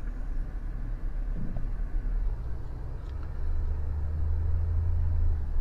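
Inside the cabin of a moving Citroën C6: low engine and road rumble, with a steady low drone that comes in a little past two seconds and grows louder about a second later.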